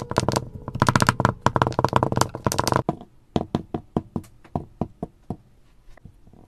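Kinetic sand crunching as it is pressed and broken apart in a glass: a dense, crisp crackle for about three seconds, thinning to separate soft clicks.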